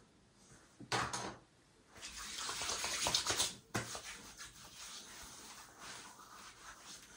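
Water running briefly from a bathroom tap, splashing for about two seconds before stopping abruptly, with a single click shortly before it.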